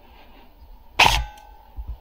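One sharp shot from an airsoft rifle about a second in, part of a string of single shots roughly a second apart, each fading quickly.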